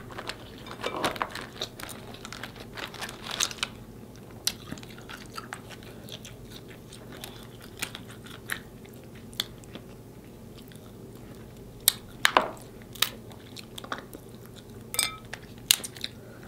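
Eating snow crab legs: shells cracking and snapping and chewing close to the microphone, in scattered clicks with a few louder crunches.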